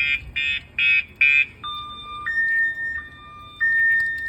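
Aftermarket Viper car alarm siren going off, set off by a hard knock on the shock sensor, pretty loud. It starts as rapid beeps, about two and a half a second, and about a second and a half in changes to a slow two-tone warble, alternating between a low note and a higher note.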